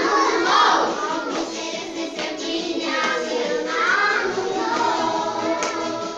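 A group of young children singing along to music.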